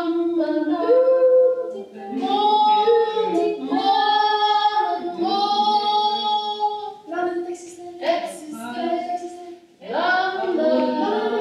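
Female voices singing without accompaniment, in long held notes.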